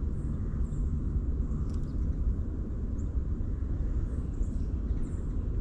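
Steady low outdoor rumble, with a few faint short high chirps scattered through it.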